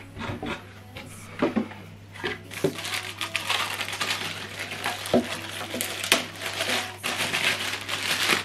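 A few light knocks, then a thin plastic bag crinkling and rustling as a small speaker is pulled out of its wrapping, a dense crackle from about two and a half seconds in.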